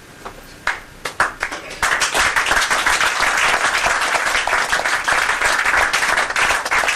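A small group applauding. A few scattered claps come in under a second in and build into steady clapping, which thins out near the end.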